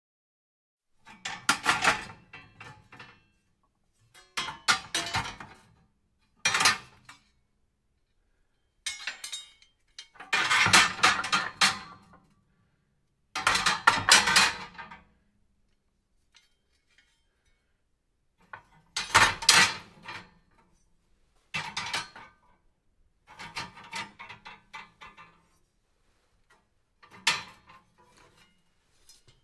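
Metal fireplace tools clanking and rattling against each other in about ten separate clattering bursts, each lasting half a second to two seconds, with silences between.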